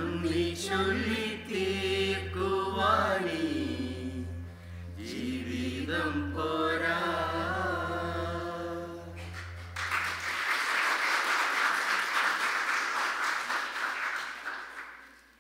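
Small mixed choir of men's and women's voices singing over a steady low accompanying note, which stops about ten seconds in. Audience applause follows and dies away near the end.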